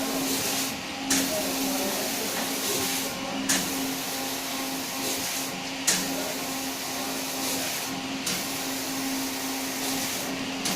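Rotary bottle washing machine running: a steady hiss of wash jets over a constant motor hum. Roughly every two and a half seconds the hiss dips briefly and a sharp click follows, as the Geneva mechanism indexes the bottle turntable.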